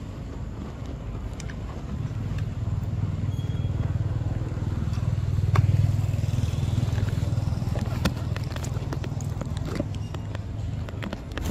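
Low engine rumble of a passing motor vehicle, swelling to its loudest about halfway through and then fading, with scattered light clicks and crackles over it.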